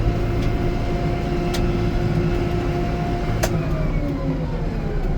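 Vehicle engine running steadily with a low rumble and a faint whine. A sharp knock comes about three and a half seconds in, and a tone slowly falls in pitch after it.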